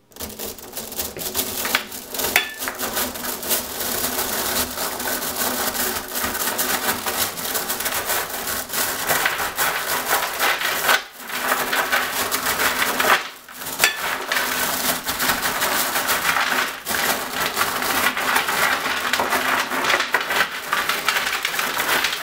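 Hundreds of neodymium magnet cylinders and chrome-plated steel ball bearings clattering, clicking and snapping together as a magnet pyramid is crushed and pushed flat by hand. The rattling runs continuously, with two short pauses about halfway through.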